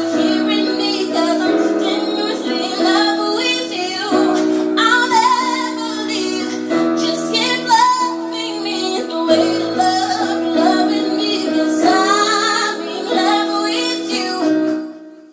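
A woman singing a melody over steady instrumental accompaniment; the music fades out near the end.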